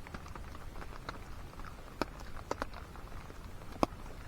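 Scattered raindrops tapping, with a few louder drops around halfway and near the end, over a low steady rumble of rain.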